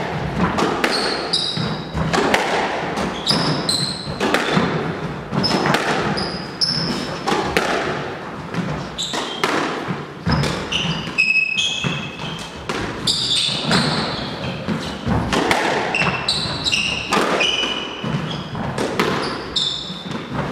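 A squash rally: the ball is struck by rackets and smacks off the walls over and over, with many short, high-pitched squeaks of shoes on the hardwood court floor between the hits.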